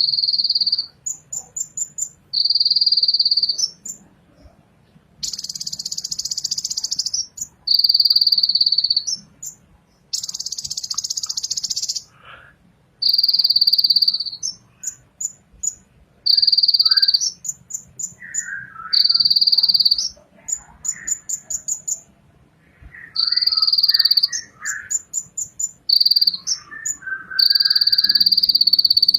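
Purple-throated sunbird (kolibri ninja) singing: repeated high buzzy trills, each a second or two long, alternating with quick runs of thin ticking notes, with some lower warbled notes in the second half.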